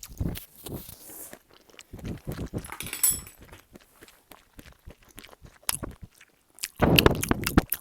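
Close-up chewing and eating noises with scattered small clicks and knocks, louder for about a second near the end.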